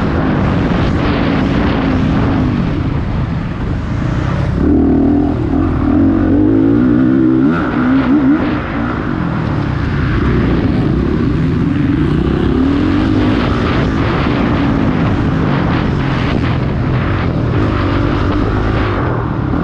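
Motocross bike engines in a race, revving hard and repeatedly rising and falling in pitch as the riders shift gears and throttle on and off.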